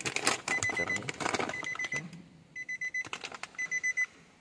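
Electronic warning chime, likely the car's own, sounding short groups of quick high beeps about once a second, with a plastic bag rustling now and then.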